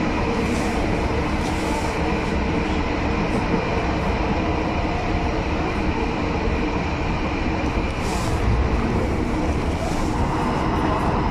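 Running noise heard inside a 1977-built Cologne Stadtbahn light-rail car under way: a steady rumble of wheels on rail and the drive, with a few brief hissing touches.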